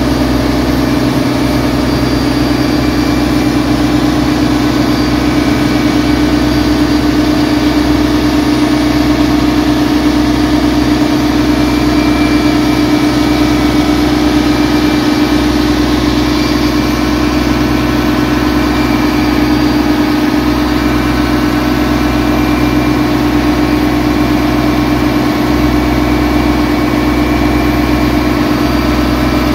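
Boat engine running steadily at an even pitch, heard from on board while under way.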